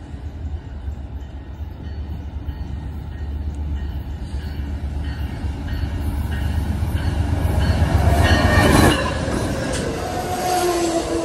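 Amtrak passenger train led by a GE P42 diesel locomotive approaching and passing at speed. A low rumble builds to its loudest about nine seconds in as the locomotive goes by, drops suddenly, then gives way to the steady rush of the passing cars, with a few steady tones ringing out near the end.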